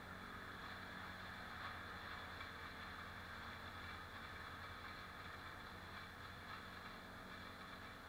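Chainsaw running steadily, heard faintly from a distance.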